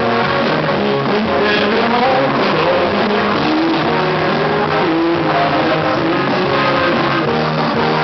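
Live band playing a dance number on electronic keyboard and drums, an instrumental passage.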